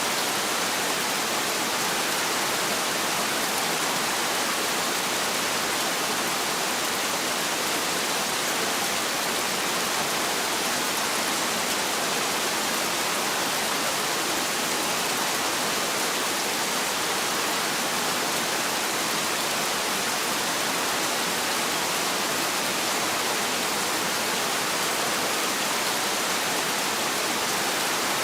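Heavy rain pouring steadily, a dense, even hiss with no thunder.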